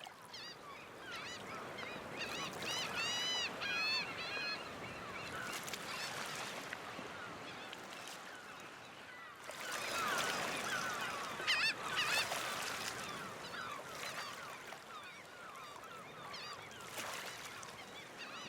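A flock of birds calling, many short arched calls overlapping in busy series, over a steady hiss.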